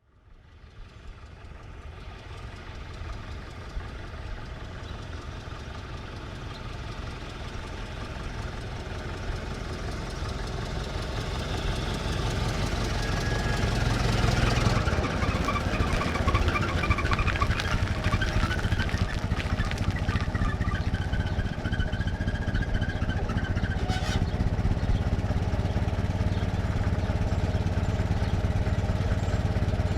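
1924 Ford Model T four-cylinder engine pulling in slowly, growing louder over roughly the first fifteen seconds, then settling into a steady idle. There is a brief sharp click about 24 seconds in.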